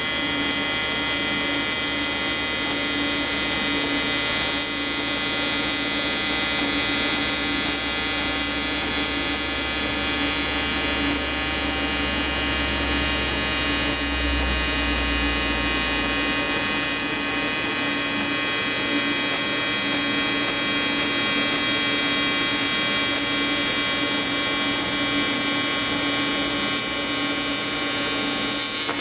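AC square-wave TIG welding arc from an Everlast 325EXT on an aluminum intercooler: a steady, harsh electric buzz with many overtones, cutting off abruptly at the very end as the arc is broken.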